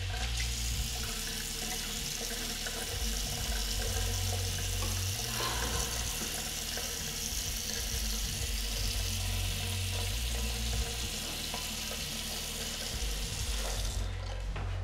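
Bathroom sink tap running, water splashing into the basin, shut off near the end. A low, muffled bass line sits underneath.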